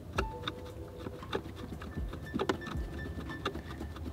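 Screwdriver tightening the bolts of a car radio's mounting bracket: scattered small clicks and scrapes as the tool turns and shifts on the bolt heads.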